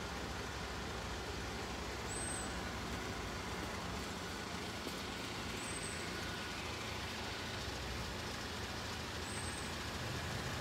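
Steady, even hum of road traffic, with cars idling at the closed crossing.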